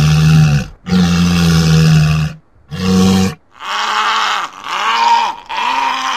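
A man's voice doing a cartoon walrus: two long, deep bellowing calls and a short third one. These are followed by three shorter calls about a second apart, each rising and falling in pitch.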